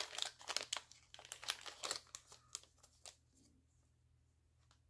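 Small clear plastic zip-lock bag crinkling as it is handled and metal filigree pieces are pulled out of it, a quick irregular rustle that stops about three seconds in.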